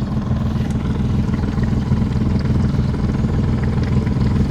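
Boat engine running at a steady pace, heard from aboard the boat as a constant low drone.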